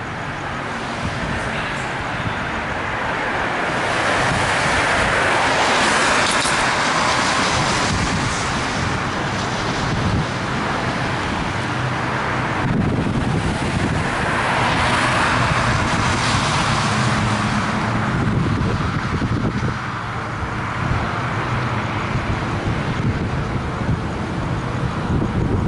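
Road traffic on a wet road: a steady tyre hiss, with two vehicles swelling past, about six and fifteen seconds in.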